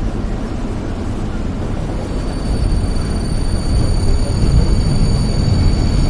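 Metro train heard from inside the car while running: a dense low rumble that grows louder from about halfway through. A steady high whine comes in about two seconds in.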